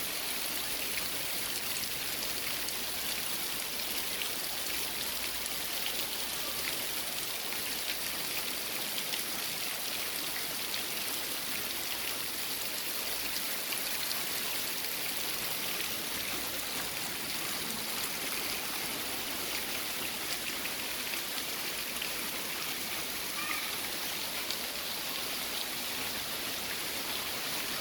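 Heavy rain falling steadily: an even, unbroken hiss with faint scattered drop ticks.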